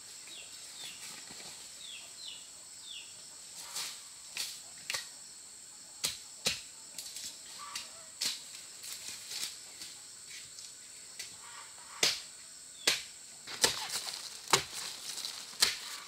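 Insects buzzing in a steady, high-pitched drone, with scattered sharp clicks and knocks. Louder rustling and crunching comes in near the end.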